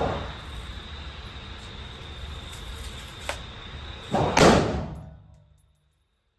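A loud bang a little past four seconds in that dies away over about half a second, with a small click about three seconds in, over a steady hiss with a thin high tone. The sound then cuts off to dead silence.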